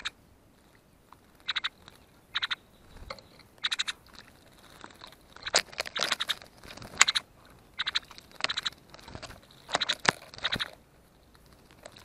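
A male orchard oriole bathing in a shallow bird bath, splashing water as it dips and flutters its wings. There are a few short splashes at first, then longer runs of splashing from about halfway.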